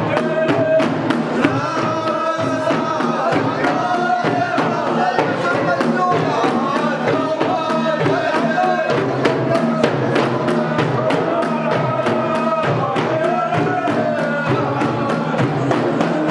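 Men's voices chanting a song together over large frame drums beating a steady rhythm.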